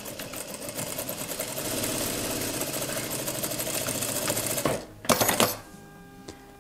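Industrial straight-stitch sewing machine running fast and evenly, stitching a seam through two layers of cotton fabric, stopping about four and a half seconds in. A brief loud rustle of the fabric pieces being handled follows.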